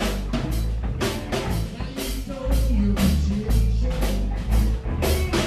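Live rock band playing loud: electric guitar and drum kit over a heavy low end, with steady drum and cymbal hits and a strong accented hit near the end.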